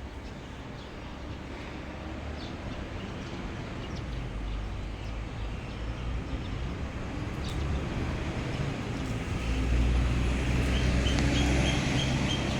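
A motor vehicle's engine running and growing steadily louder, loudest about three-quarters of the way through, as it comes closer. A few brief bird chirps are heard over it, with a quick run of short, high repeated notes near the end.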